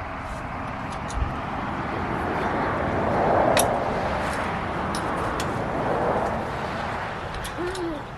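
A vehicle passing by, its tyre and engine noise swelling to a peak about three and a half seconds in and fading near the end. A few light metallic clicks sound over it.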